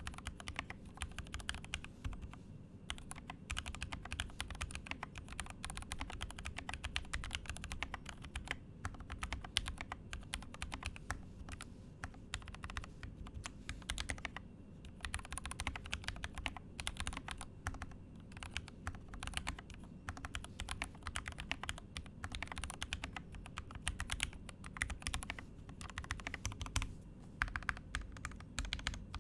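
Continuous fast typing on a custom mechanical keyboard with Gateron Yellow linear switches, a dense run of key clacks broken by a few short pauses.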